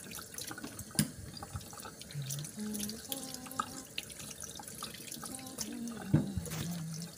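Tap water running into a stainless steel sink and splashing over beef ribs as they are rinsed by hand, with two sharp knocks, about a second in and near the end.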